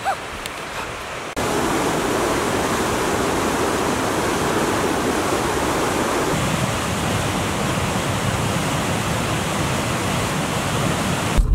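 Steady rushing of fast-flowing river water, starting abruptly about a second in. Its tone deepens about halfway through, and it cuts off just before the end.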